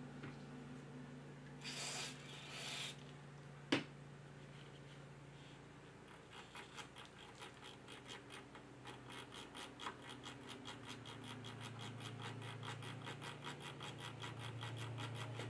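Two short hisses of Deoxit Gold G5 contact cleaner from an aerosol can, then a sharp click. After that the amplifier's gain knob is turned over and over, its detents ticking about four or five times a second as the cleaner is worked into the dirty potentiometer.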